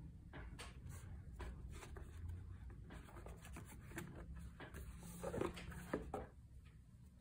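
Cardboard board-game parts being handled: the printed game board scraping against the box as it is slid and lifted out, with light rubbing and small clicks and a couple of soft knocks about five to six seconds in.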